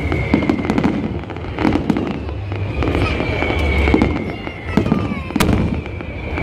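Fireworks display: aerial shells bursting in a dense run of crackles and bangs, with one sharp crack about five seconds in. Through it run high whistles that fall slowly in pitch.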